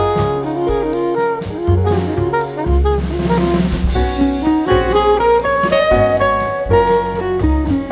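Background jazz music with saxophone melody, drum kit and bass.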